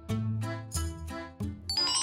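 Bouncy, light background music with plucked notes and a bass line, and a bright rising chime run that starts near the end.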